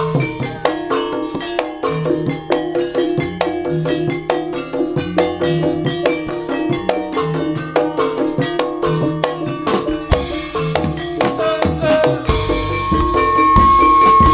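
Live East Javanese jaranan gamelan music: metallophones playing fast ringing notes over drums and low tones in a steady rhythm. It grows louder and brighter about twelve seconds in, with a single high note held near the end.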